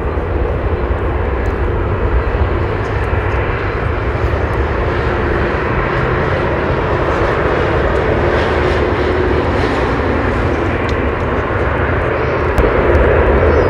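Airbus A300-600 freighter's twin jet engines running at taxi power as the aircraft rolls by: a steady jet rumble with a low hum, growing a little louder near the end.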